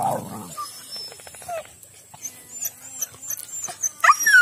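Dogs vocalising: a call trails off at the start, then about four seconds in a hunting dog lets out a loud howl that falls steeply in pitch.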